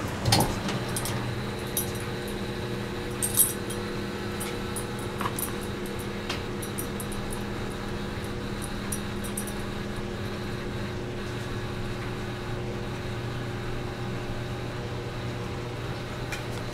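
Steady low hum of a fan or appliance, with scattered light clinks from a dog's metal collar tags; the sharpest clink comes about three seconds in.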